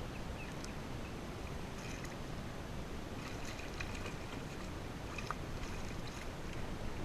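Water lapping against a kayak hull, with a steady low wash and a few faint small splashes and drips scattered through.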